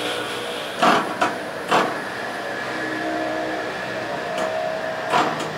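Fiber laser marking machine running with a steady mechanical hum and a few faint tones, broken by several sharp clicks.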